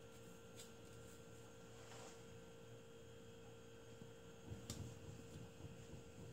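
Near silence over a steady electrical hum, with a few faint clicks and light knocks from a kitchen knife trimming potato pieces on a wooden cutting board. The clearest knock comes a little over halfway through.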